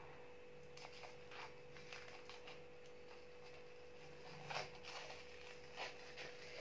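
Faint crackling and rustling of a dried egg-white and tissue-paper face mask being peeled off the skin, with a few scattered crackles, over a faint steady hum.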